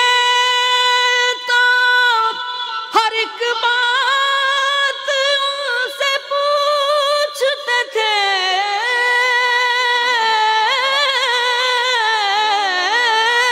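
A man singing a naat unaccompanied into a microphone, drawing out long held notes that then waver and slide in ornamented runs, with a few short breaks for breath.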